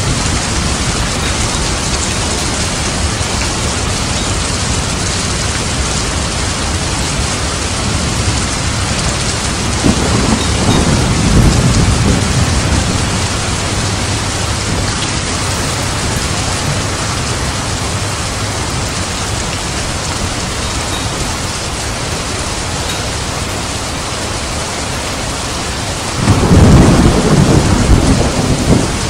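Steady rain falling, with thunder rumbling twice: a low roll about ten seconds in, and a louder one that starts suddenly near the end.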